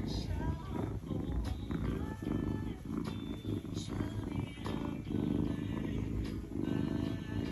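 A kitten purring as it is held and stroked: a continuous low rumble that pulses with its breathing.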